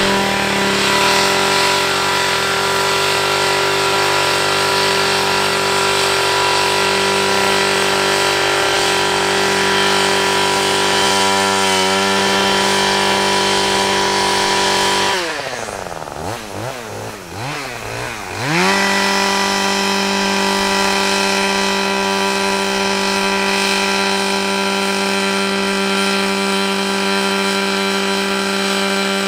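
Husqvarna 535LK two-stroke combi engine driving a power brush, running at a high, steady speed. About halfway through, the throttle is eased off and the engine speed swings up and down for a few seconds, then it opens back up to full speed.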